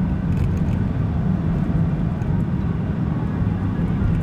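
Steady low rumble of a car's engine and road noise while driving, as heard from an onboard camera in the car.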